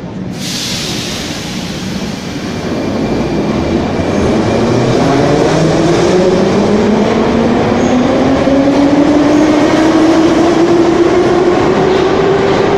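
Moscow metro train accelerating, its traction motors whining in a pitch that climbs steadily over a rumble of wheels on rails, growing louder as it gathers speed. A short burst of hiss comes just after the start.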